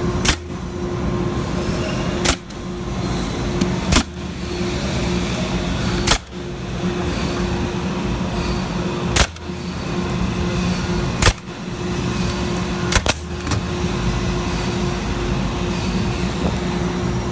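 Nail gun firing nails one by one into wooden door beading to fix a replacement panel, about eight sharp shots a second or two apart, the last two in quick succession. A steady mechanical hum runs underneath.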